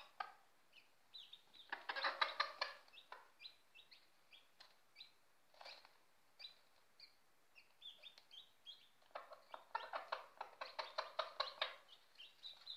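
A broody hen clucks softly to her newly hatched chicks in quick runs of about ten clucks a second, once near the start and again in the last few seconds. Between the runs her chicks peep with short, high, falling cheeps. This is the hen's food-calling chatter as she hands food to a chick, a way of 'talking' she took up only once the chicks hatched.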